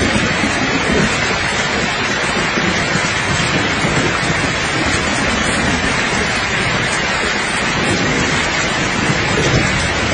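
Steady rain falling, an even hiss, with a low rolling rumble of distant thunder underneath.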